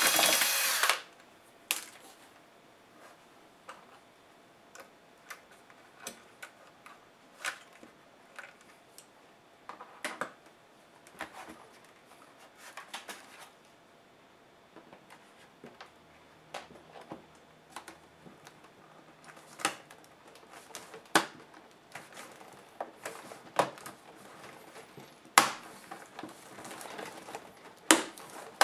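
A cordless electric screwdriver runs for about a second at the start, then scattered clicks and knocks of a laptop's plastic case being handled. Louder sharp clicks near the end come as the hinge cover above the keyboard is pried loose.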